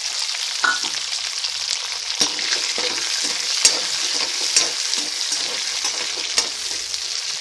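Shallots sizzling in hot ghee and sesame oil with a mustard, cumin, red chilli and curry leaf tempering in a kadai, stirred so that the spatula knocks against the pan a few times.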